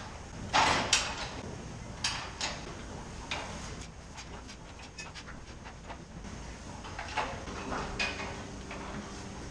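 Irregular scrapes and rustles of hay being pushed along the concrete feed alley with a fork, mixed with knocks and clanks from cows at the metal feeding barrier. The loudest knocks come in the first second.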